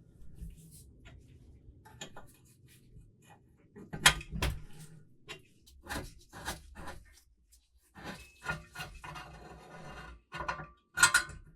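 Metal parts being handled: scattered knocks and clinks, the sharpest about four seconds in and again near the end, with a stretch of scraping or rubbing in between.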